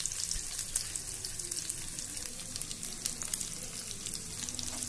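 Crushed garlic cloves and cumin seeds frying in hot oil in a pan: a steady sizzle with many small crackles and pops.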